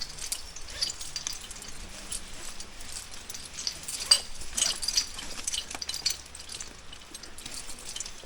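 Scattered light clinks and taps at an irregular pace over a faint hiss: climbing gear and rope moving during a rappel, with one sharper click about four seconds in.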